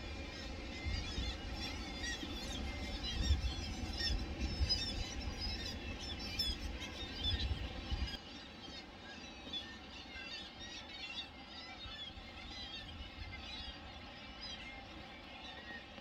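A seabird colony calling from the cliffs: many birds at once, a dense chorus of short high calls. Wind buffets the microphone until about eight seconds in, then drops away.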